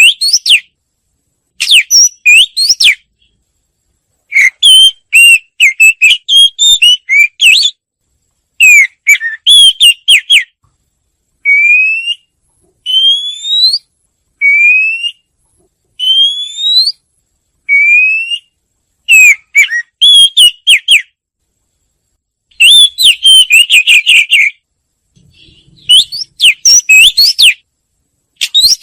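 Songbird called chìa vôi in Vietnamese singing loud, whistled song in separate phrases with short pauses: quick varied runs of notes, and midway a series of single rising slurred whistles.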